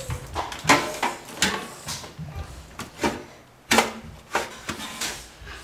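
Hard drive being worked into a desktop computer case's drive bay: a series of knocks and scrapes as it is pushed and fumbled into place.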